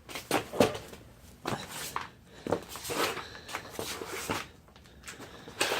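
A string of short, irregular knocks and scuffs, about eight over several seconds, with quiet gaps between them.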